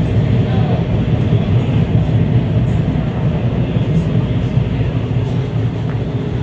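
Passenger train rolling along the rails: a steady, loud low rumble.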